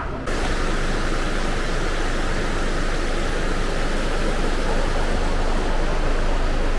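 Steady rushing of water flowing down a concrete street channel, cutting in abruptly just after the start.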